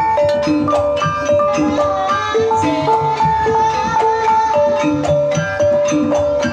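Javanese gamelan playing a Banyumasan tayub piece: bronze bonang kettle gongs struck with mallets in quick, even patterns of several notes a second, each note ringing on, over the steady sound of the rest of the ensemble.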